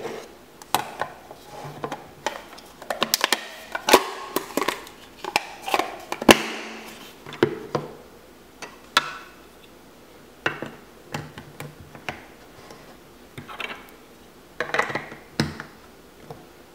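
Hard plastic LEGO Duplo pieces knocking and clicking as they are handled and pressed together, the boat's deck fitted onto its hull and a brick snapped onto the studs. An irregular scatter of sharp clicks, the loudest about four and six seconds in.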